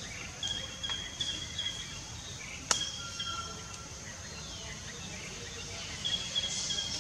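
Forest ambience: a steady high insect drone, with a few runs of short, high repeated chirps and a single sharp click a little before the middle.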